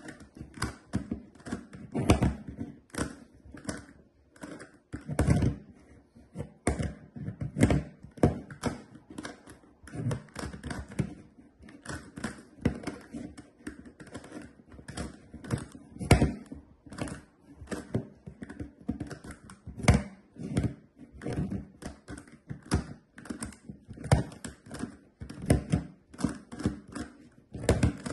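GAN Megaminx being turned one-handed: a continuous irregular run of plastic clicks and clacks as its faces snap round, about two to three a second, with a few louder knocks among them.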